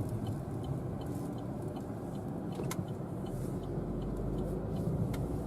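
Car cabin noise while driving along a highway: steady engine and tyre rumble.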